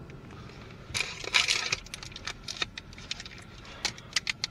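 Scattered light clicks and rattles, with a short rustle about a second in.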